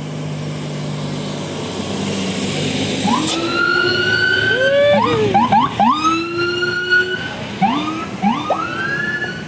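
A bus's telolet musical air horn playing a melody of several notes sounding together, each sliding up into a held tone in a siren-like way. It starts about three seconds in and plays again near the end, over a low steady hum.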